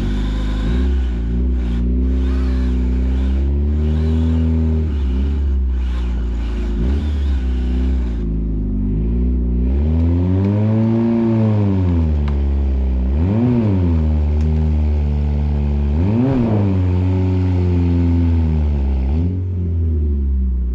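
Honda Civic wagon's engine revving hard under load as the car strains on a tow rope, its wheels spinning in a four-wheel burnout. The revs surge and drop back several times about halfway through.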